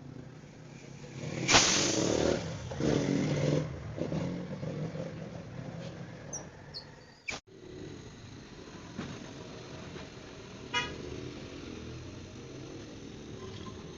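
A vehicle horn honks twice, about two seconds in, followed by a brief rapid rattle later on.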